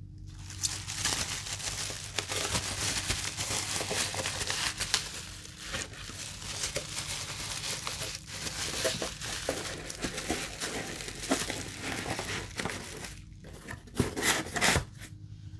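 Plastic bubble wrap being crumpled and crinkled in the hands, a dense crackling rustle. A short pause near the end, then a few louder sharp rustles and knocks as the cardboard box is handled.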